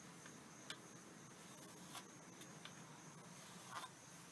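Faint scratching of a pencil drawing marking lines on pine boards, with a few light ticks, over a near-silent background.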